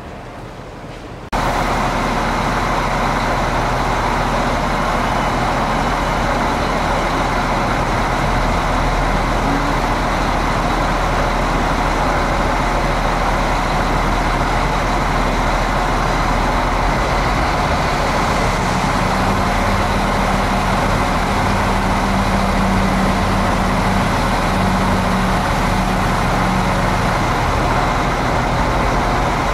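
Diesel train engine running steadily while standing, with a faint steady whine over it and a low hum joining about two-thirds of the way through. It starts abruptly just over a second in.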